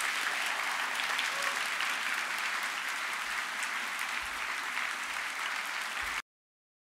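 Large audience applauding steadily, cut off abruptly about six seconds in.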